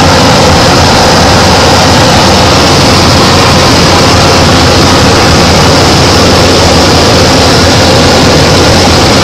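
Single-engine light aircraft's piston engine and propeller droning steadily, heard from inside the cockpit, with the hiss of airflow over the cabin.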